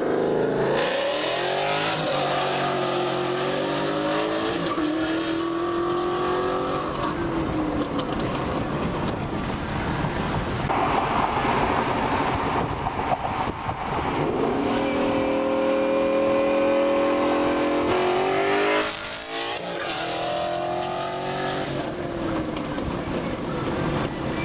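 2012 Ford Mustang GT's 5.0 V8 through a Borla S-Type cat-back exhaust, accelerating several times with the engine note climbing, with a stretch of steady cruising drone in between. Road and wind rush comes from the pacing car.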